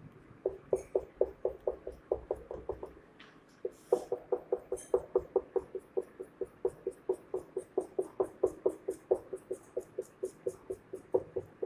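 Whiteboard marker striking the board in quick short strokes as a row of hatch lines is drawn: a fast, even run of taps about five a second, with a short pause about three seconds in.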